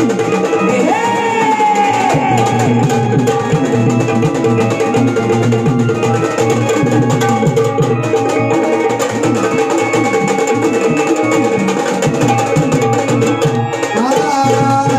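Instrumental interlude of a Marathi folk song: drums keep a rhythm under a steady held drone, with a short melodic phrase about a second in and again near the end.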